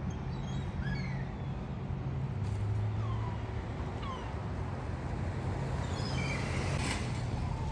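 Several short, falling mew-like animal calls, heard about a second in, around three and four seconds, and again near six seconds, over a steady low hum.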